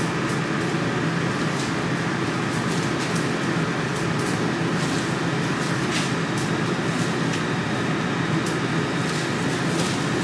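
Steady mechanical drone of running machinery, with a few faint steady hum tones. Faint scattered ticks of a knife against a cutting board as steak is trimmed.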